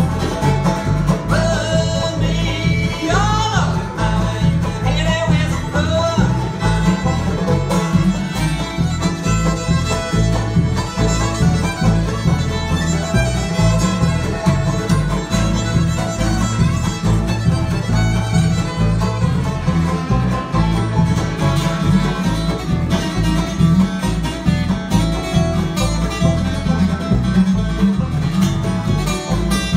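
Live bluegrass band playing: fiddle out front with sliding notes in the first few seconds, over five-string banjo, acoustic guitar rhythm and upright bass.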